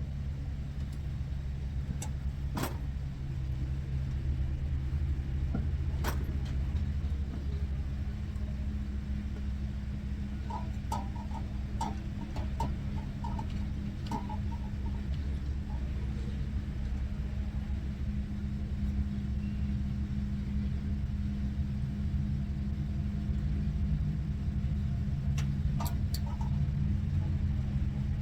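Diesel truck engine idling with a steady low rumble, with a few sharp metallic clicks of a wrench on the truck's hardware.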